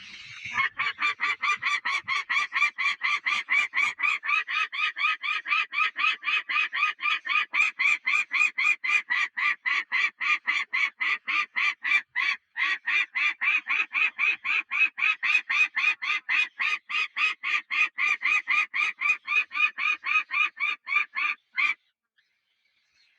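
Nestling birds begging: a rapid, steady series of short high-pitched calls, about four a second, that cuts off suddenly near the end.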